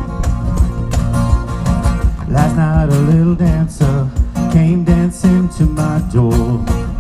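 Live band music with guitar and a steady beat of sharp hits; a singer comes in about two and a half seconds in, the voice wavering with vibrato.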